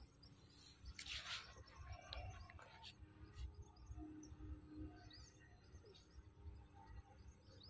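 Near silence: faint riverside ambience with a few faint bird chirps.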